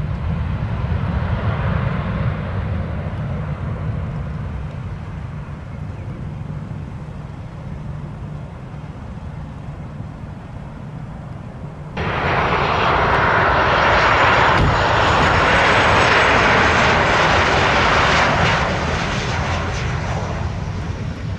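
Jet airliner engine noise. At first a Finnair Airbus rolls out after landing, its engine noise fading to a low rumble. About twelve seconds in, the sound switches abruptly to a Transavia Boeing 737 on final approach, whose jet engines are loud and steady before easing off near the end.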